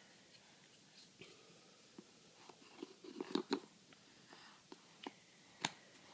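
Faint, scattered taps and clicks of cardboard jigsaw pieces being handled and pressed into place, with a small cluster about three seconds in and one sharper click near the end.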